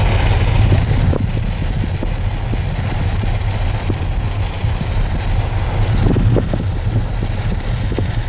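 Steady road and engine noise of a car driving along a highway, heard from inside the cabin, mostly low in pitch.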